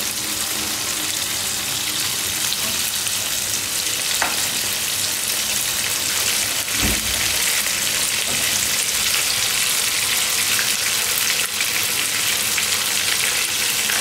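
Flour-coated chicken pieces shallow-frying in hot vegetable oil on a high flame: a steady sizzle from the bubbling oil. A metal slotted spatula knocks against the pan twice, about four and seven seconds in, as the pieces are turned.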